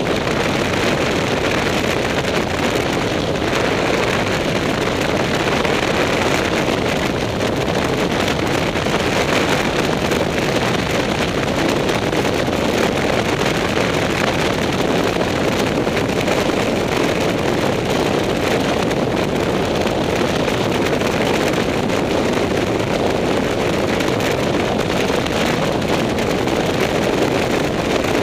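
Motorcycle cruising at steady speed: a constant rush of wind on the microphone mixed with engine and road noise, with no change in pitch or level.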